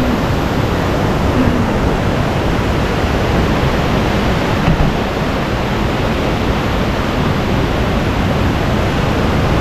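Steady rushing of a river's water, an even hiss with no breaks.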